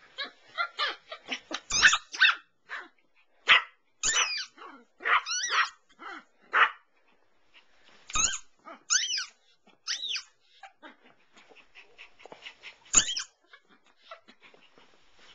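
Toy Yorkshire terrier barking and yipping close to the microphone in short, high-pitched bursts. They come thick through the first ten seconds, then there is one more about thirteen seconds in.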